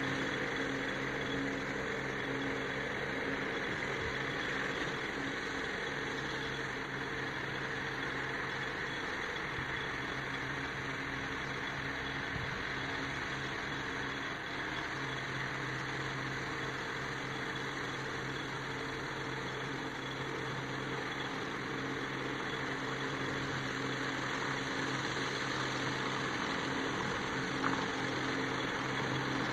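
New Holland 7630 tractor's diesel engine running steadily while driving an articulated side mower.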